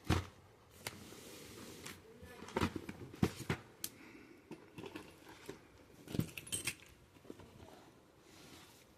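Packaging being handled and unwrapped from a robot vacuum: rustling of wrapping with irregular knocks and clicks, the loudest knock right at the start.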